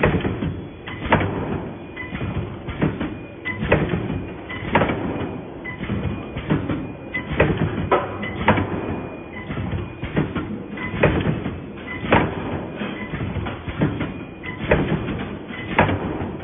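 Gantry-type wire mesh welding machine running, its multi-head welding cycle giving a sharp clack about once a second over steady machine noise.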